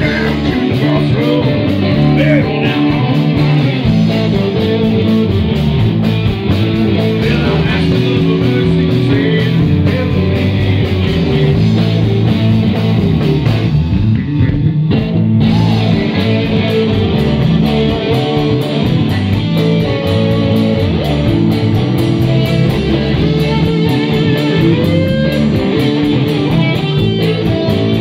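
Live blues-rock band playing loud, with electric guitars over a steady drum beat and the lead guitar bending notes now and then.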